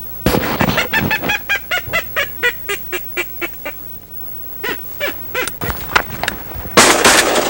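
A rapid series of short, nasal, honking duck calls, about five or six a second, slowing and thinning out to a few scattered calls, then a loud burst of noise near the end.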